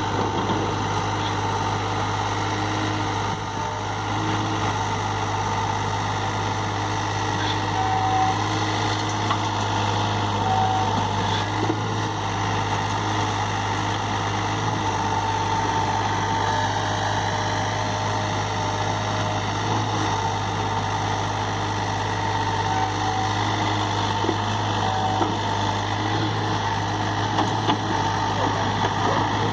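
SANY SY35U mini excavator's diesel engine running steadily, with a few faint short clicks over the steady hum.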